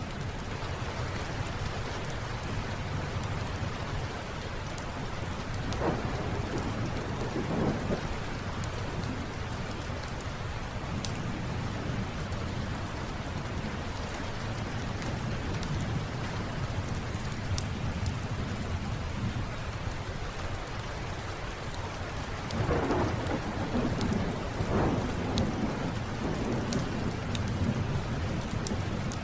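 Steady rain with two rolls of thunder, one about six seconds in and another a little past twenty-two seconds, with faint scattered crackles of a wood fire.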